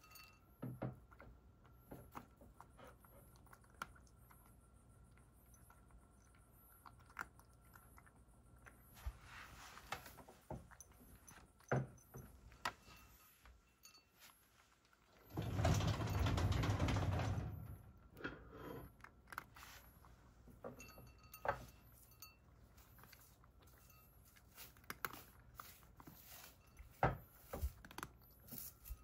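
Cat eating dry kibble from a ceramic bowl: scattered crunches and small clicks of teeth and food pieces against the bowl. About halfway through, a loud rushing noise lasts two or three seconds.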